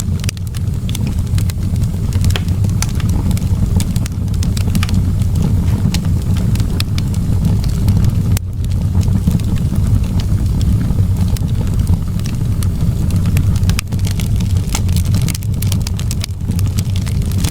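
Wood fire crackling in a fireplace: frequent sharp pops and snaps, irregularly spaced, over a steady low rumble.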